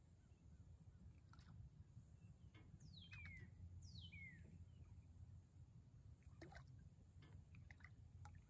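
Faint bird calls: two sharp whistles sliding down in pitch, about a second apart, over a steady low rumble, with a few faint clicks near the end.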